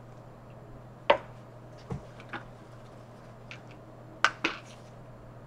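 About half a dozen light clicks and taps of small plastic sauce cups and their lids being handled and pressed shut, the sharpest about a second in and two close together near the end.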